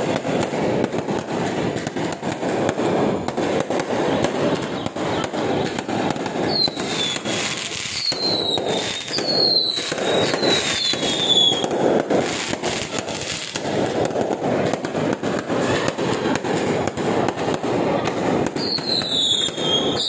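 Multi-shot consumer fireworks firing in rapid succession: a dense, continuous run of pops and crackling bursts. A series of short falling whistles comes about a third of the way in and again near the end.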